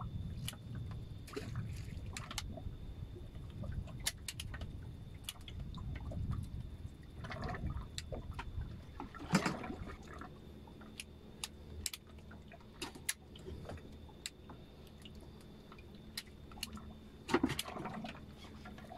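Water lapping and sloshing against a small boat's hull under a low rumble, with scattered sharp clicks and knocks. The loudest is a brief knock about nine seconds in.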